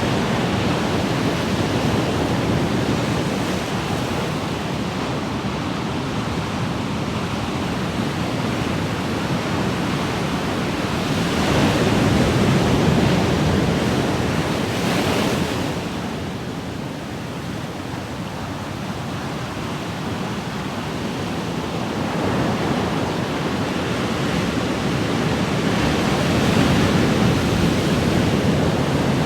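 Ocean waves washing in a steady rush of surf, swelling louder about twelve seconds in and again near the end as larger waves break.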